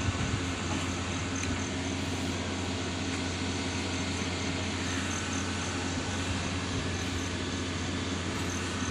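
Heavy concrete-pouring machinery running with a steady low drone and hum, unchanging throughout.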